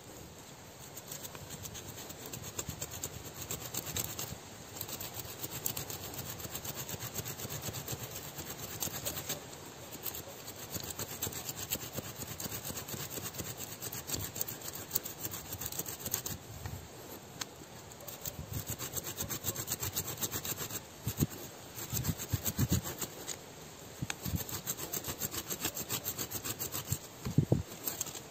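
A hand saw cutting through the roots of a serut (sandpaper tree) below ground, in runs of quick, even back-and-forth strokes with short pauses between them. A few dull knocks come in the last third, the loudest near the end.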